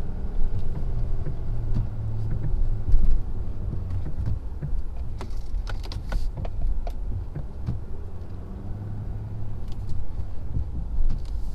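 Ford F-250's 6.7-litre Power Stroke diesel V8 running steadily while plowing snow, with a few sharp knocks and clicks, the loudest about three seconds in and a cluster around the middle.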